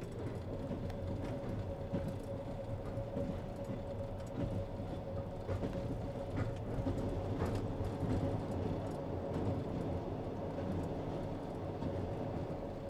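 Steady low rumble of a vehicle under way, with a constant hum tone over it and a few faint clicks.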